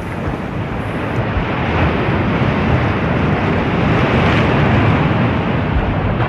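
Sea surf washing onto a beach: a loud, steady rush of breaking waves that swells through the middle and eases near the end, with wind rumbling on the microphone underneath.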